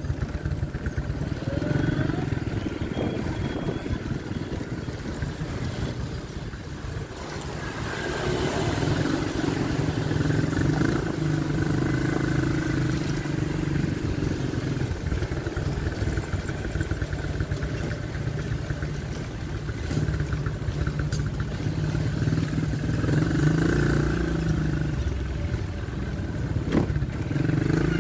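Motorcycle engine running steadily as it is ridden, with road and wind noise. The engine note dips about seven seconds in and picks up again soon after.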